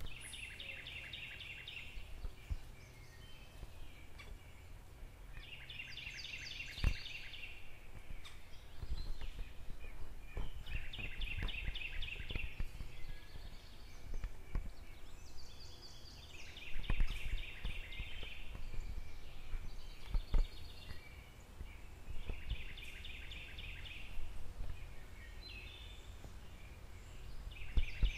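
A songbird repeats a short, rapid trilled song about every five seconds, each phrase lasting under two seconds, over a steady low rumble.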